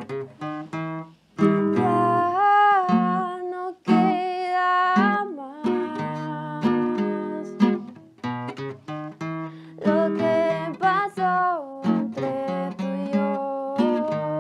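Live acoustic guitar strumming chords, with a woman's voice singing a slow melody over it in long held notes.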